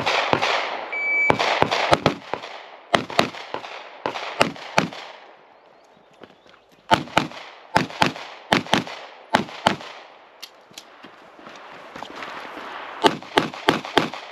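A short electronic shot-timer beep, then gunshots as a competitor shoots an IPSC stage: sharp cracks fired mostly in quick pairs, in strings broken by short pauses while moving between positions, with a quieter gap of about a second and a half near the middle.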